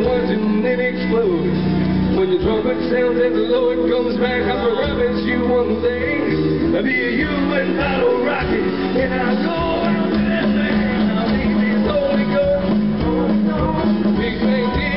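Live country band playing a song, amplified through the stage sound system, with guitars among the instruments.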